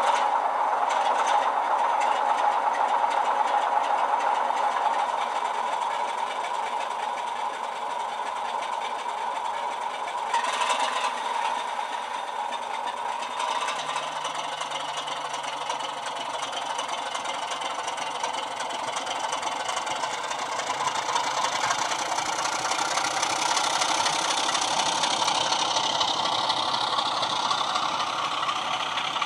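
Class 33 diesel engine sound from a model locomotive's DCC sound decoder, played through a 27mm bass-enhanced speaker. The engine ticks over steadily, then the note builds from about two-thirds of the way in as the locomotive pulls its wagons away.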